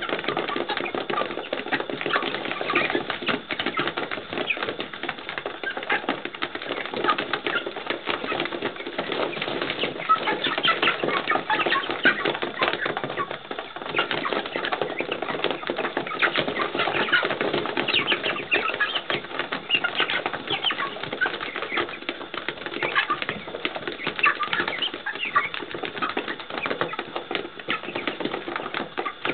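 A crowded flock of pullets in a feeding frenzy: a constant clatter of many beaks pecking rapidly at feed and litter, with scuffling, wing flaps and peeping calls mixed in.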